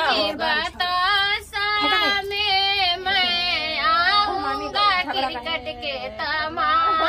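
Unaccompanied female voice singing a banna geet, a north Indian wedding folk song for the groom, in long held lines with a wavering pitch.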